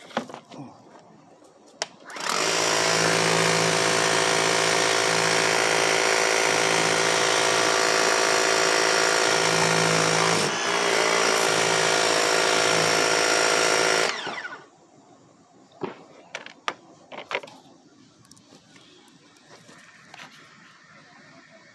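A pressure washer runs for about twelve seconds, its motor hum under the hiss of the water jet, while it rinses the degreaser off a car wheel. The sound dips briefly about ten seconds in, then cuts off with the motor winding down. A few small knocks and drips follow.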